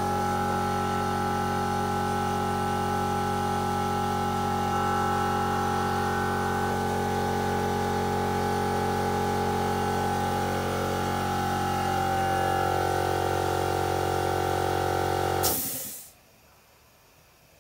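Stuart V10 single-cylinder double-acting model steam engine running fast and steadily on compressed air, a continuous hissing drone from its exhaust. Near the end it stops with a click and the sound dies away within half a second.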